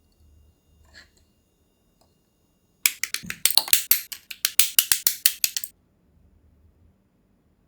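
A rapid run of sharp plastic clicks, several a second for about three seconds, from small plastic model-kit parts being worked by hand.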